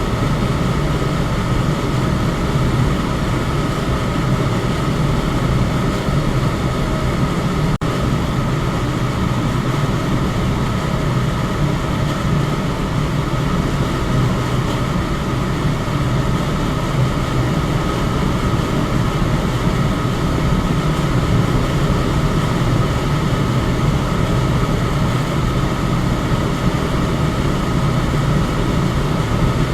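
Electric fan running steadily: an even whoosh of moving air over a low motor hum. One momentary dip in loudness comes near eight seconds in.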